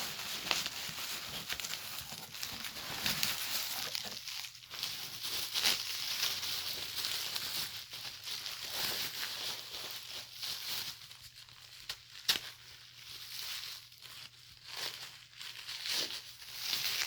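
Packaging being unwrapped by hand: irregular crinkling and tearing of wrapping material, with a single sharp click about twelve seconds in.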